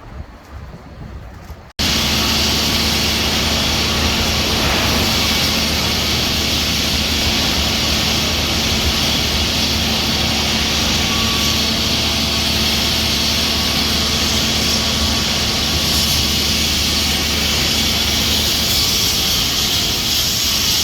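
A loud, steady mechanical roar with a low hum, starting abruptly about two seconds in, after a moment of quieter, uneven wind-like noise.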